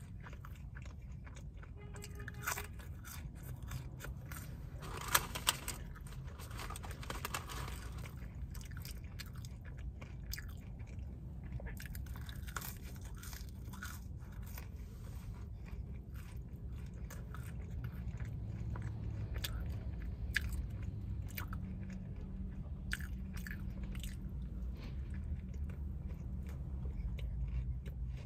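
Close-miked chewing and biting of a McDonald's sandwich: soft crunches and wet mouth clicks, with the sharpest crunches about five seconds in. A steady low hum runs underneath.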